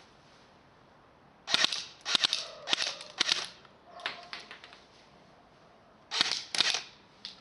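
Electric airsoft Tommy gun firing short full-auto bursts: four quick bursts in a row about a second and a half in, a fainter one after, then two more near the end.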